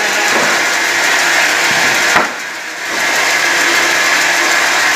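Multi-blade rip saw running steadily and loud as boards feed through it on its conveyor. About two seconds in there is a sharp knock, and the noise dips for under a second before coming back.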